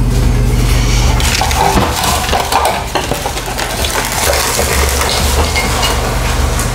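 Dishes clattering as bowls, plates and utensils are gathered up quickly off a kitchen counter, with irregular knocks and clinks starting about a second in.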